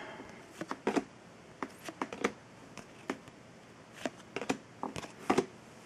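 Trading cards being flipped one by one from a hand-held stack: an irregular scatter of short clicks and flicks as each card slides off the others.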